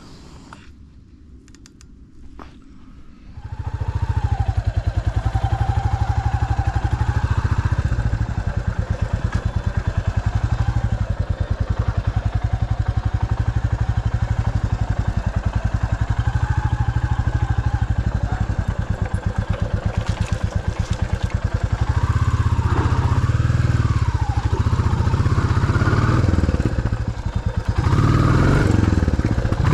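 Off-road vehicle engine coming in loud about three and a half seconds in and running under load on a rough byway, the revs rising and falling.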